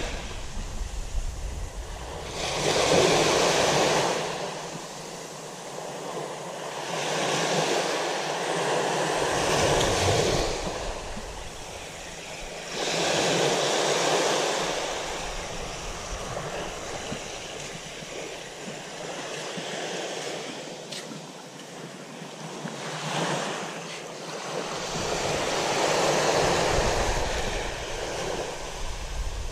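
Small waves breaking and washing up a sandy beach, the noise of the surf swelling and fading every few seconds.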